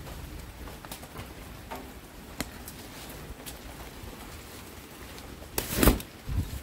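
Heavy rain falling as a steady hiss, with scattered sharp drops ticking close by. Near the end comes a loud, short thump, followed by a smaller one.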